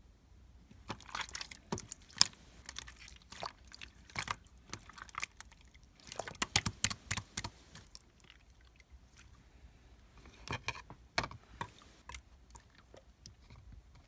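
Irregular clusters of crisp clicks and crunches: a run from about one to two and a half seconds in, a denser run around six to seven and a half seconds, and a few louder snaps near eleven seconds.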